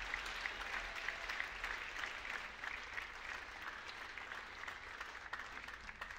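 Audience applauding: a dense, even patter of clapping that thins out and grows quieter near the end.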